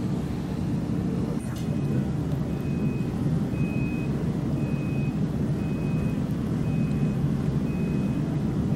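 A reversing alarm beeping, high and short, about once a second, starting about a second and a half in, over a steady low rumble.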